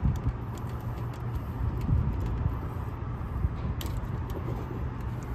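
Wind rumble on the microphone over a steady low hum, with a few faint small clicks as wires and spade terminals are handled on a contactor. One sharper click comes near the middle.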